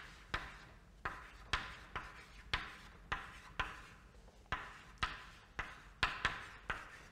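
Chalk writing on a chalkboard: sharp taps of the chalk striking the board about twice a second, each followed by a short scratch as a letter is drawn.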